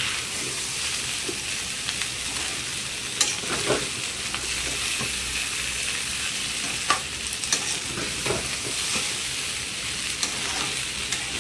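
Cut boiled potatoes sizzling in hot oil with onion and spices in a frying pan, a steady frying hiss. A spatula scrapes and taps against the pan every second or so as they are stirred and turned.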